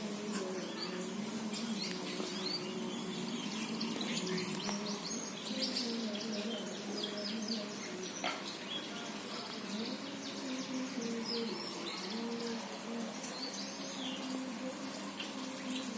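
Small birds chirping repeatedly in short, high calls, over a low wavering hum.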